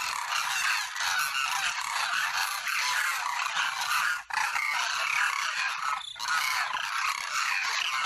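A group of cranes (koonj) calling together, many calls overlapping with hardly a pause.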